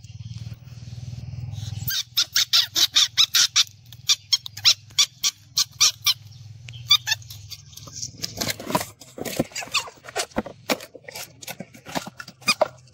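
A young pet ferret giving a rapid run of short, high-pitched squeaking cries, several a second, starting about two seconds in. It is crying out because a crab has pinched its ear.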